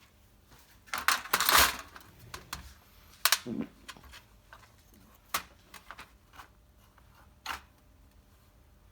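Small metal parts and tools clicking and clinking during hand work on a car distributor: a loud cluster of knocks about a second in, then single sharp clicks a second or two apart.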